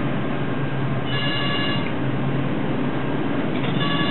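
Steady rushing noise of storm wind and heavy seas heard from the bridge of a bulk carrier in a storm. A steady high-pitched tone sounds for about a second, once about a second in and again near the end.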